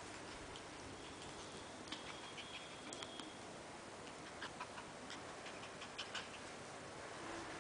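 Faint, irregular light clicking, a puppy's claws on a tiled floor, over a low hiss, with a faint high squeak about two seconds in.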